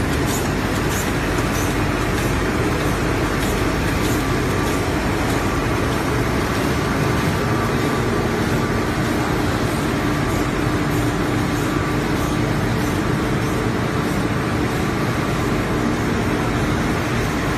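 Automatic film laminating machine with a flying-knife sheet cutter running at speed: a steady mechanical running noise with a faint hum. Light regular ticking, about two a second, is heard over it during the first few seconds.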